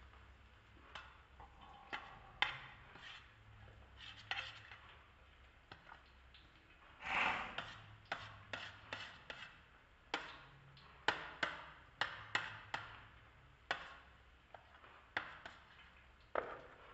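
A table knife clicking and scraping against a stainless steel bowl while beating raw eggs with chopped onion and spices, in irregular taps with a longer scrape about seven seconds in.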